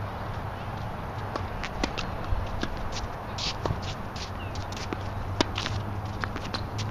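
Tennis rally on an outdoor hard court: a scattered string of sharp pops from balls struck by racquets and bouncing on the court, with footsteps, over a steady low hum. The loudest pop comes a little over five seconds in.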